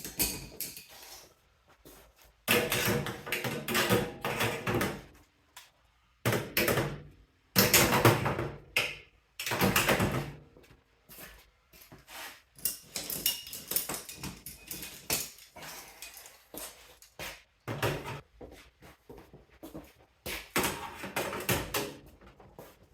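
Metal hand tools (pliers) clattering and clinking as they are handled and set into stainless steel sheet-metal shelving, in irregular bouts of rattling and knocking with short gaps between.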